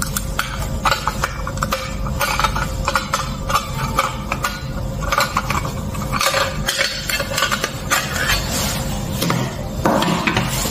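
Small metal springform cake tin clinking and knocking as it is handled, its clip latch clicking, with many short metallic taps. A rustle of cloth comes near the end as the tin comes out of a cotton bag.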